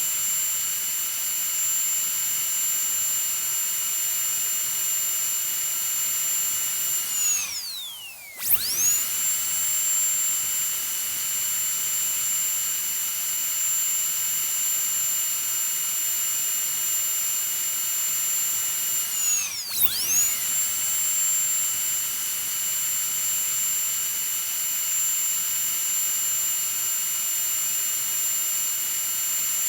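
Dentist's high-speed drill running with a steady, piercing high whine. It spins down and stops about seven seconds in, then spins straight back up; it does the same again near twenty seconds, and starts to spin down at the end.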